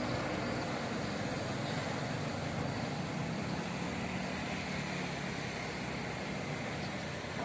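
Diesel bus engines running at low speed as buses move across the terminal: a steady engine noise with a faint low hum, and no sharp events.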